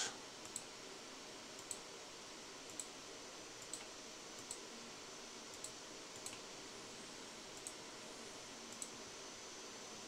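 Computer mouse clicking: about nine faint single clicks, roughly a second apart, each placing a corner of a polygon selection, over a low steady hiss.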